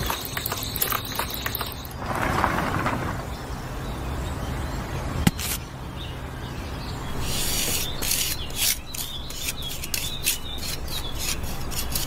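Gritty scraping and rubbing of fingers and a small piece working a damp sand-and-cement mix around a miniature wire rebar column, with a quick run of small scrapes and clicks in the second half.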